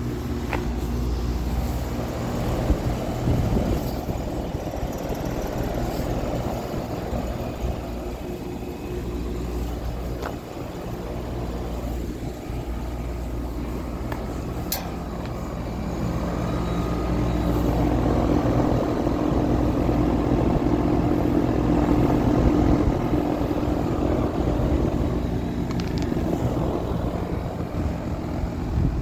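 Two package heat pumps, a 2015 Carrier and a 2020 Lennox, running in heating mode: a steady compressor hum under the whoosh of the outdoor fans. The hum gets louder about halfway through.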